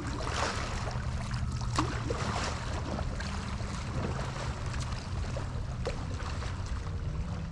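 River water lapping and splashing right at a microphone just above the surface, with small irregular splashes over a steady low rumble of wind.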